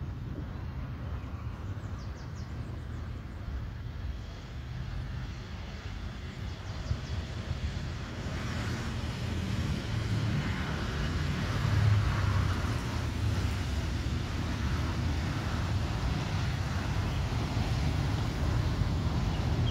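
Distant jet airliner on approach, a Boeing 737 MAX 8 with CFM LEAP-1B turbofans, its engine noise a hiss that slowly grows louder from about the middle on, over a steady low rumble.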